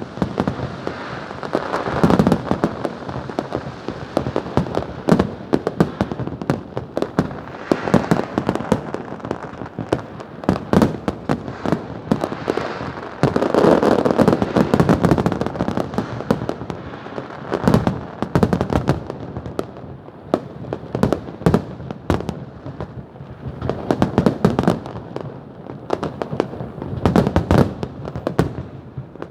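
New Year fireworks display: a dense, continuous barrage of overlapping bangs and crackling bursts with a rumbling echo beneath, heaviest a little before halfway.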